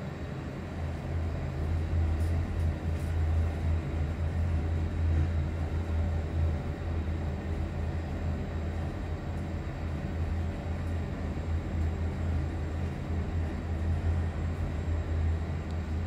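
Otis lift car travelling down between floors: a steady low hum and rumble of the car and hoist. It picks up about a second in and eases slightly near the end.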